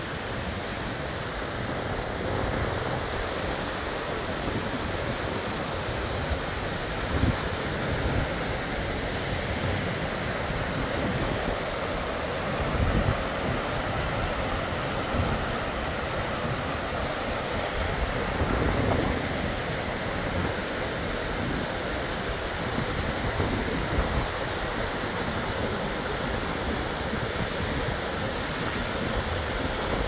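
Steady rush of falling and running water from the Iffigfall waterfall and a rocky mountain stream. A few brief low thumps of wind buffet the microphone.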